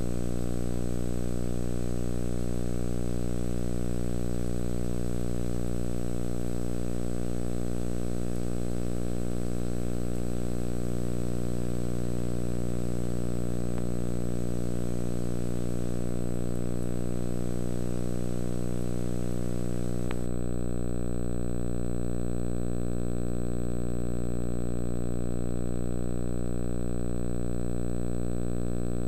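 Steady electrical hum with a stack of even overtones on the videotape's soundtrack, with tape hiss above it that drops away suddenly about twenty seconds in as the tape runs out to blank.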